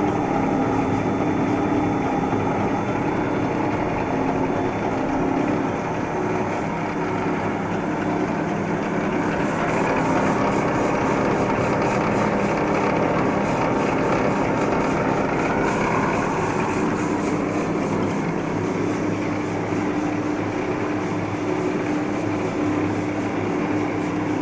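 A large Cincinnati Milacron engine lathe running under power, its spindle drive and gearbox giving a steady mechanical hum with a whining tone. The whine grows a little brighter for a few seconds in the middle.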